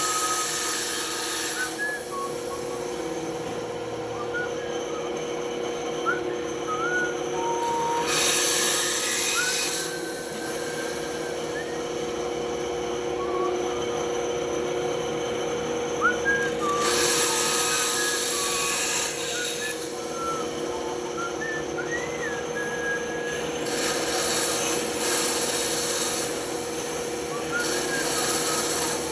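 Benchtop bandsaw running with a steady hum, its blade cutting wood in several short passes of hiss.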